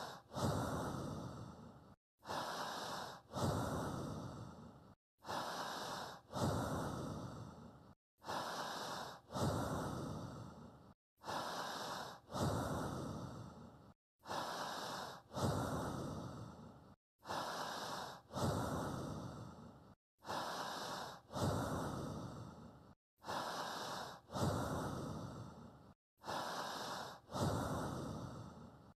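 Looped recording of human breathing, paced at one slow breath every three seconds, about ten in all, each broken off by a brief clean silence. Each breath comes in two parts, a short one and then a longer one that fades away.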